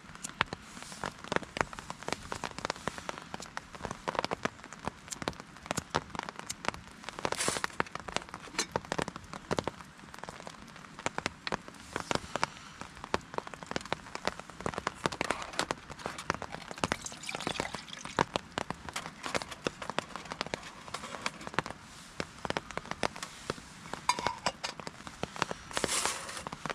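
Heavy rain falling on a nylon hammock tarp overhead, a dense irregular patter of drops with the odd louder hit.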